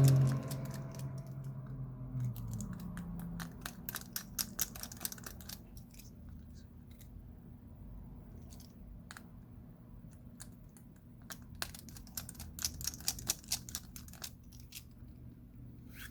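Faint clicking and ticking of a small precision screwdriver on the tiny screws of a smartphone's internal frame, with the screws being handled and set down. The clicks come in two clusters of quick taps, one a few seconds in and one after the middle.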